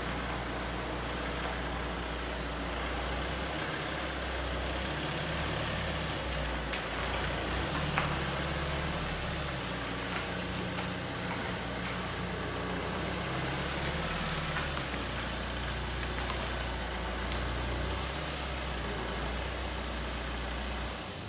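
Ford Transit van running on the road: a steady low engine note that shifts in steps, under an even rush of road noise.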